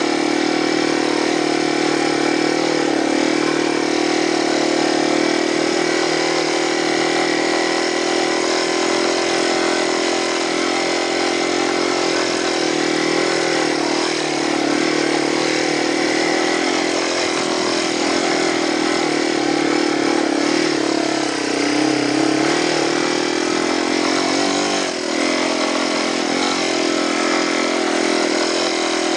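Yamaha TW200 dual-sport motorcycle's single-cylinder four-stroke engine running steadily while riding a dirt trail, its pitch holding nearly even, with a brief dip in loudness about 25 seconds in.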